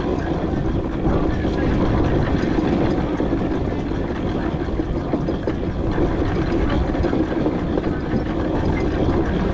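4-inch-scale McLaren traction engine on the move: a steady, loud mechanical rumble with no clear beat.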